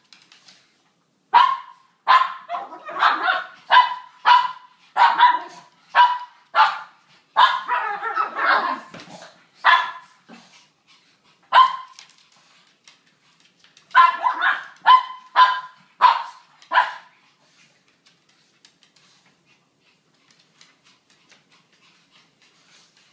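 Small Brussels Griffon dogs barking in play-fighting: sharp, high barks in quick runs, with a thicker, rougher stretch partway through. After a short pause comes a last run of barks, and then the barking stops well before the end.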